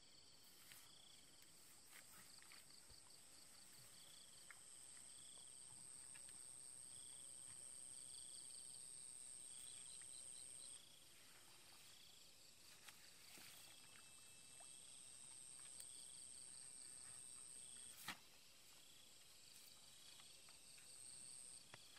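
Faint chirping of insects: a steady high trill that drops out briefly a few times, and a shorter chirp repeating every second or so, with scattered faint clicks and one sharper click near the end.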